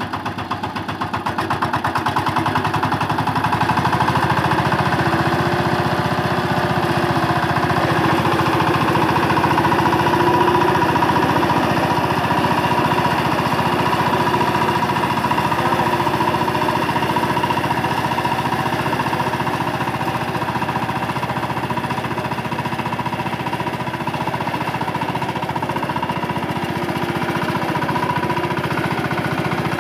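Single-cylinder diesel engine of a VST Shakti 130 DI power tiller running steadily under load while its rotary tiller churns deep paddy mud. The engine gets a little louder about two seconds in.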